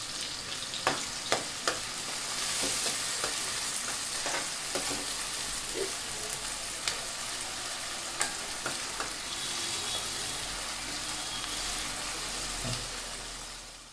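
Chopped onions, green chillies and curry leaves sizzling in hot oil in a thick-bottomed pan, with scattered sharp clicks of stirring against the pan. The sizzle fades out near the end.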